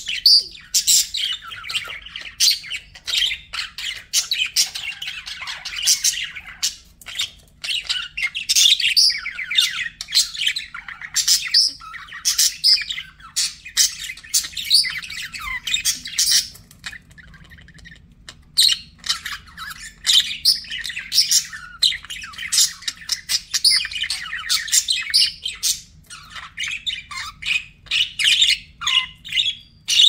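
Budgerigars chattering and warbling in fast runs of chirps mixed with short squawks, with a brief lull a little past halfway.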